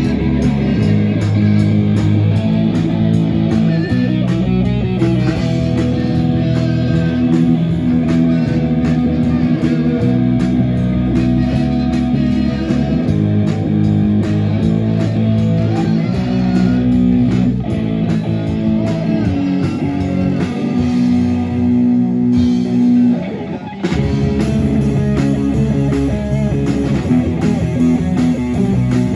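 Live pop-metal band playing: electric guitar and bass guitar over drums. About 22 seconds in the drums drop out and the sound thins briefly, then the full band comes back in about two seconds later.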